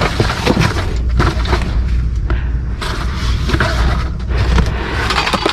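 Rummaging through trash in a dumpster: scattered knocks, thuds and rustles of items being moved, over a steady low rumble.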